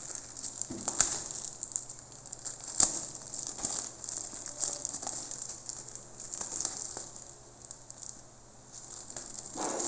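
Thin plastic bag crinkling and rustling as it is handled, with a few sharp crackles, the loudest about one and three seconds in.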